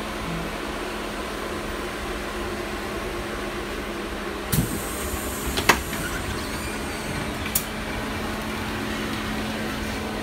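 Interior of an LM-68M3 tram: a steady hum with a constant low tone. A few sharp clicks and knocks break it, about four and a half, five and a half and seven and a half seconds in; the one near the middle is the loudest.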